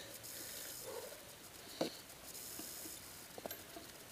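Faint rustling with a few scattered clicks, one sharper click about two seconds in, over a light hiss.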